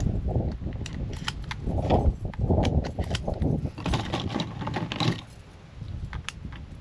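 A run of sharp clicks and knocks from handling a Remington 870 pump-action shotgun, with a louder cluster of knocks about two seconds in.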